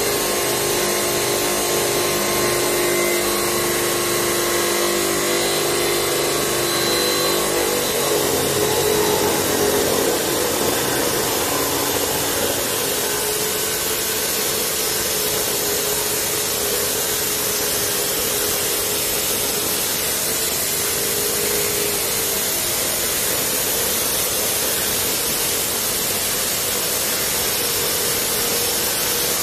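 Electric abrasive cut-off saw (drop saw) grinding through steel: a steady, loud motor-and-disc noise. About eight seconds in, the motor's hum gives way to a rougher grinding as the disc bites harder and throws more sparks.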